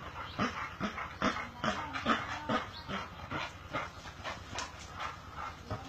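Small dogs giving short, repeated whining cries, about two a second.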